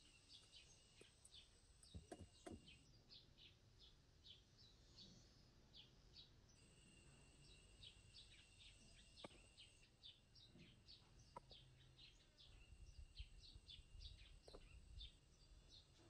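Faint forest ambience: small birds chirping in quick repeated notes over a steady high insect drone that drops out and returns. A few soft knocks and scuffs come from stones being handled.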